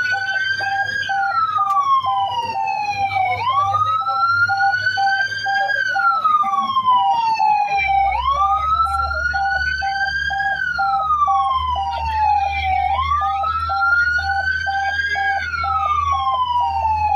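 Fire truck siren wailing, its pitch rising and falling in slow cycles of about five seconds each. Under it a pulsing tone sounds about four times a second, over a low engine rumble that grows louder about eight seconds in.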